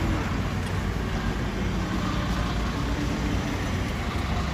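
Steady low engine rumble from the machinery driving the amusement ride.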